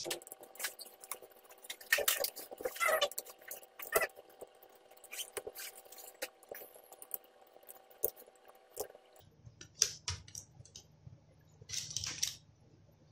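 Small screwdriver clicking and scraping on the screws and metal parts as a laptop's cooling fan and heatsink are unscrewed, with light knocks and rattles as the parts are handled. The clicks come in irregular clusters, the busiest near the start, around four seconds in and near the end.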